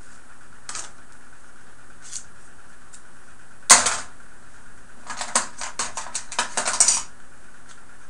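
Unwrapping packaging by hand: one sharp click a little before the middle, then a quick run of small clicks and crackles near the end, as a plastic-wrapped item is worked open with a razor blade.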